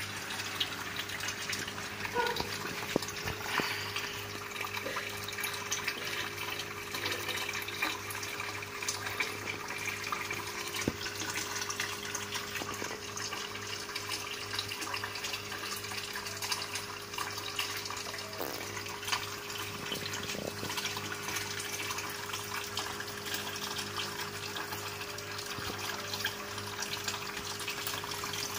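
Water trickling and bubbling in a goldfish tank, over a steady low hum with occasional small drips or ticks.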